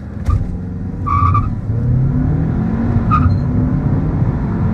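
2017 Audi A3's 2.0-litre turbocharged four-cylinder pulling hard from a standstill, heard from inside the cabin. The engine note rises, dips at an upshift about two and a half seconds in, then climbs again. Two brief high chirps come about a second in and about three seconds in.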